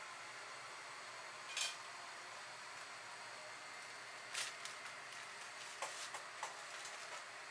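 Metal cooking utensils clinking against a pan or tray: one ringing clink, another a few seconds later, then a quick run of small taps near the end, over a steady low hiss.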